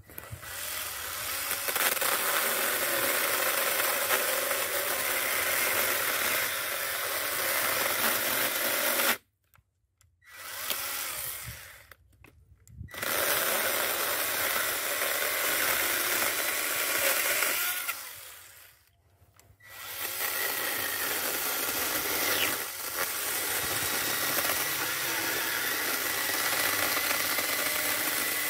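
Worx WG324E 20 V cordless pruning chainsaw running, its electric motor and chain cutting into a tree stump. It stops abruptly about nine seconds in, gives a short burst a second later, then runs and cuts again. Around two-thirds of the way through it winds down and starts up once more.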